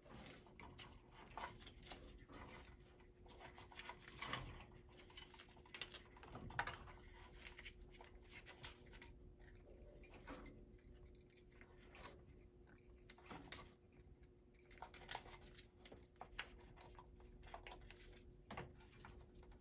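Pliers snipping and stripping thin low-voltage wire: scattered small clicks, snips and scrapes at an uneven pace. A faint steady hum sits underneath.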